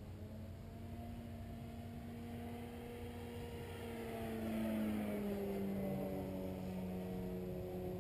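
Electric motor and propeller of a radio-controlled Extra 330SC aerobatic model plane buzzing in flight. It grows louder toward the middle and its pitch drops as the plane passes by, then it holds at the lower pitch.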